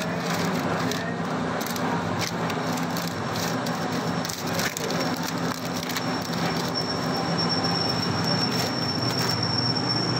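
Plastic packaging film crinkling and rustling in short crackles as it is pulled by hand over the forming collar of a powder packing machine, over a steady low hum; a thin high whine joins about seven seconds in.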